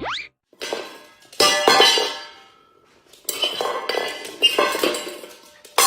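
Clattering and clinking of hard objects with a ringing after-tone, in two long bouts, like dishes or pans being knocked about.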